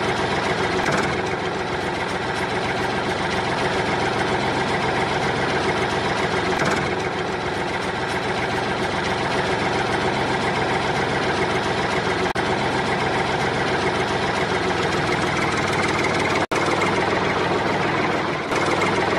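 Heavy engine idling steadily with a low knock, holding one even pitch, broken briefly about 16 seconds in.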